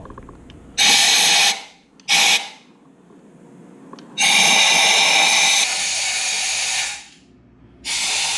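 Handheld air blower blowing dust out of a motorcycle's spark plug wells before the plugs come out. It goes in four blasts: two short ones, one of nearly three seconds, and another beginning near the end. Each blast is a loud hiss with a steady whine in it.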